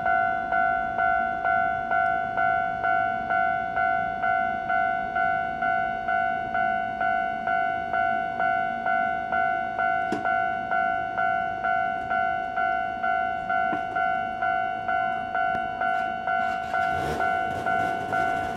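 Railway level-crossing alarm ringing steadily, its electronic bell striking a little over twice a second. Near the end there is a short rattle.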